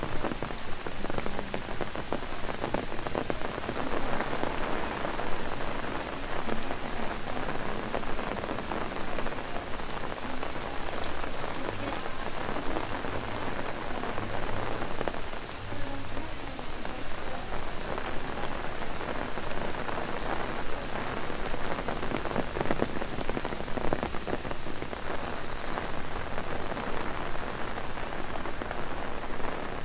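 Heavy rain striking an umbrella overhead, a dense patter of drops, with a steady high chorus of cicadas running behind it.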